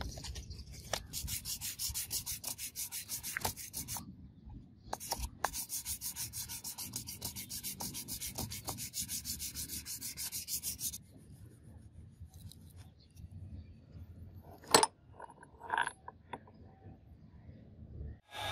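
Hand file scraping across the steel saddle of a hydraulic jack held in a vise, in rapid, even back-and-forth strokes, with a short break about four seconds in. The filing stops about eleven seconds in, and light handling clicks and one sharp knock follow.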